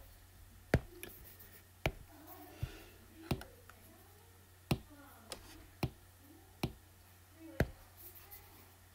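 Apple Pencil tip tapping on an iPad's glass screen: about nine sharp, irregularly spaced clicks as pen tools and colours are picked.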